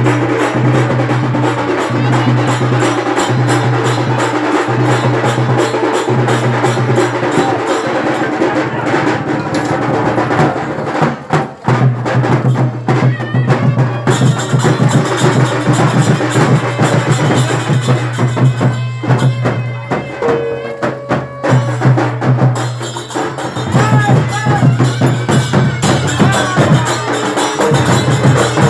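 Traditional percussion music: fast, dense drumming over a low steady hum, briefly thinning out about eleven seconds in.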